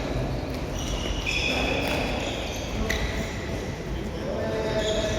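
Indoor futsal play: short high squeaks of shoes on the court floor, a sharp knock of the ball about three seconds in, and a steady hall murmur of players.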